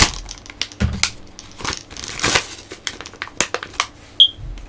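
Action-figure plastic and card packaging crinkling and rustling as it is handled, in irregular crackly bursts, with a brief high squeak near the end.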